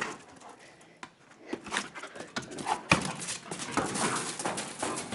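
A dog panting as it plays fetch, with scattered light clicks and scuffs.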